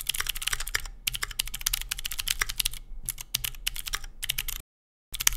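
Fast typing on a computer keyboard: a quick, uneven run of key clicks with brief pauses, stopping about four and a half seconds in with a few last clicks after.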